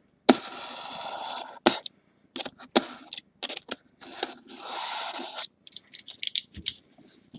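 Hands handling a gold briefcase-style trading-card box: sharp clicks and knocks, with two stretches of steady scraping, then a run of small quick clicks near the end.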